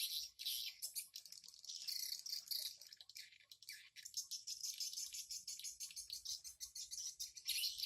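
Swiftlets calling: dense, rapid, high-pitched twittering and rattling chirps, thinning briefly around the middle and growing stronger again near the end.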